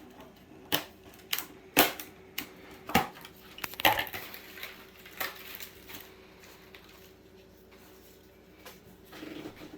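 Light clicks and taps, about a dozen in the first six seconds, from kitchen items being handled on a counter; then only a faint steady hum.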